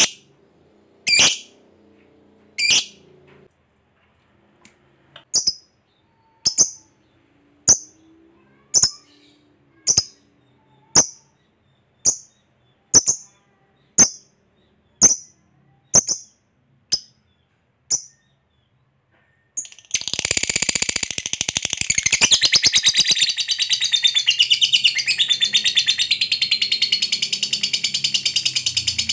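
Lovebird giving single short, high chirps about once a second, then breaking about twenty seconds in into a long, continuous, rapid chattering song (the 'ngekek' prized by lovebird keepers) that carries on to the end.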